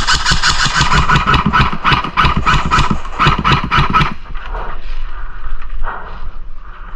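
Airsoft electric gun firing full-auto, a rapid string of shots at about seven or eight a second that stops about four seconds in. Scattered quieter shots and clicks follow.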